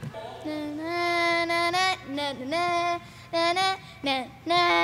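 A boy singing a wordless tune: one long, slightly wavering note, then a string of shorter notes with short breaks between them.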